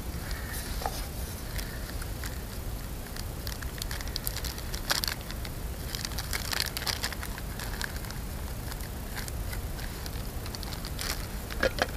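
A small plastic bag rustling and crinkling in the hands, in scattered spells of crackle, over a steady low rumble.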